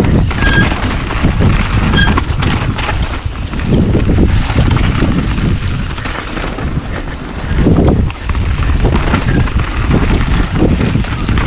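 Wind buffeting the camera microphone while a mountain bike rides down a rocky trail, its tyres and frame clattering and rattling over rocks and roots. Two brief squeaks come about half a second and two seconds in.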